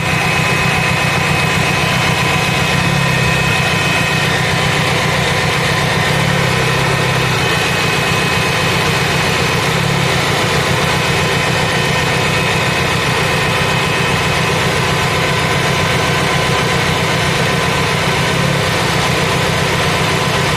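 Fiat Punto engine idling steadily, with a fast even pulsing underneath and a few steady whining tones. It cuts off abruptly at the end.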